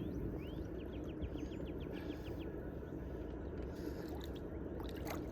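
A bird singing: a few short rising chirps, then a quick run of about a dozen repeated notes, over a steady low rumble of wind and water.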